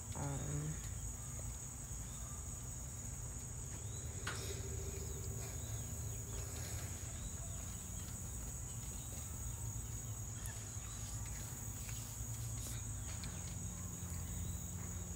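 Steady, high-pitched insect chorus, a continuous shrill trill that doesn't let up, over a low steady rumble.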